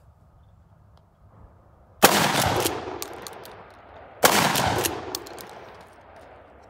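Two shots from a 12-gauge Mossberg 590S pump shotgun firing 3-inch 00-buck, about two seconds apart, each a sharp, loud bang with a rolling echo that dies away over about a second and a half. Clacks of the pump being worked follow each shot.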